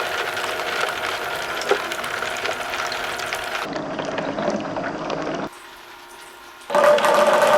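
Water running down a somen noodle slide, a steady rushing with a few light clicks from balls in the channel. The sound changes about halfway through, drops away, and music with a steady tone starts near the end.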